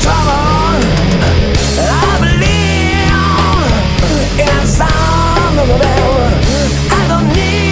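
Studio-recorded hard rock band playing: electric guitars, bass guitar and drums, with a lead line that slides and bends in pitch over a loud, steady backing.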